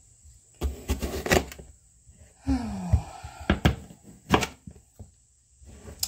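Chef's knife slicing through yellow squash and knocking on a wooden cutting board: a quick run of cuts about a second in, then single cuts every second or so.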